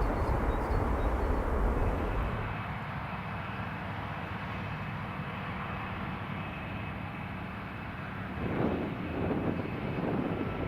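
Jet airliner engines, a steady noisy rumble with a faint high whine; the deepest rumble drops away about two seconds in. Near the end, gusts of wind buffet the microphone.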